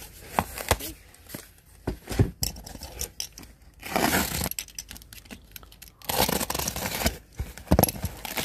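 Packing tape on a cardboard box being slit with a box cutter and torn open, with cardboard rustling and small knocks from the boxes being handled. There are two longer tearing stretches, about four seconds in and again from about six seconds.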